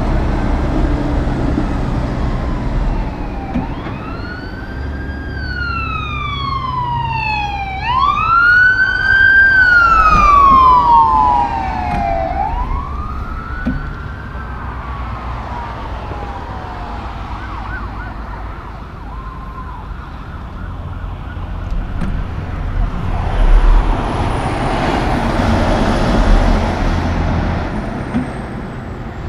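Emergency vehicle siren wailing, its pitch sweeping up and down in slow cycles for about ten seconds, over the steady rumble of highway traffic. Near the end, a loud swell of truck and tyre noise as a heavy truck passes.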